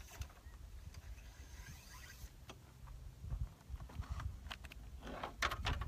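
Wind rumbling on the microphone, with faint scattered clicks and a quick run of sharper clicks and knocks near the end from handling rifle-cleaning gear: cleaning rod, brush and patch, at the bench.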